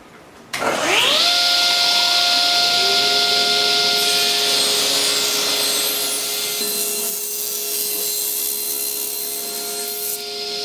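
Table saw motor starting with a whine that rises over about a second, then running steadily at speed while cutting a wooden piece to fit the miter slot.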